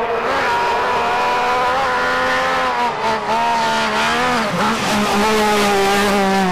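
Peugeot rally car's engine running hard at high revs through a gravel corner, its pitch rising and falling with two brief dips as the throttle comes off and goes back on.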